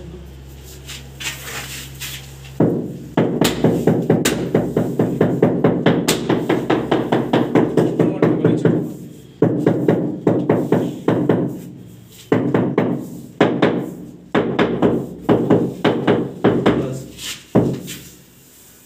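A mallet tapping rapidly on the face of a large ceramic wall tile, several blows a second, in runs of a few seconds with short breaks, the tile ringing under the blows. The tapping beds the 2×4 ft tile into the fresh mortar on the wall.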